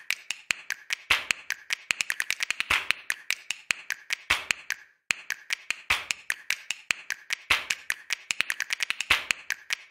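A rapid, uneven series of sharp taps or clicks, several a second, in bursts, with a short break about five seconds in.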